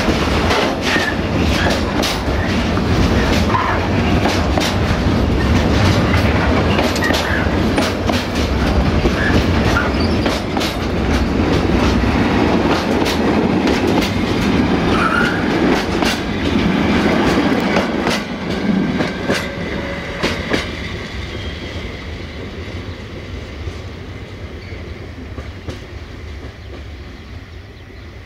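Container wagons of an intermodal freight train rolling past close by, their wheels clattering rhythmically over rail joints. The noise fades steadily over the last third as the end of the train passes and draws away.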